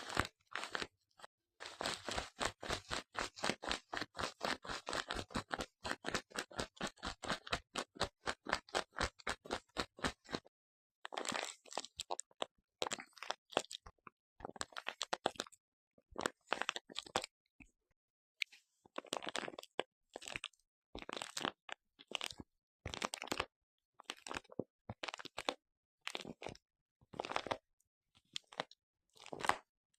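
Crunching and crackling from a household object being worked for a sound effect: a fast, even run of crunches for several seconds, then short bursts of crunching broken by silences.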